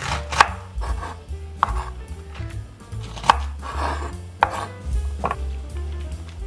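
Chef's knife chopping bok choy on a wooden cutting board: about five sharp knocks of the blade on the board, irregularly spaced about a second apart, with softer cutting sounds between them.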